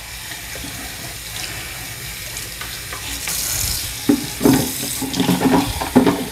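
Water from a bathroom sink faucet running and splashing into the sink as the plastic parts of a carpet cleaner's dirty-water tank are rinsed under it. It runs steadily at first and turns uneven and splashier from about four seconds in.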